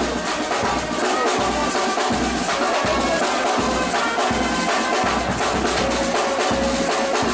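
A street wind band playing: brass holding sustained notes over a steady bass drum beat with cymbals and snare.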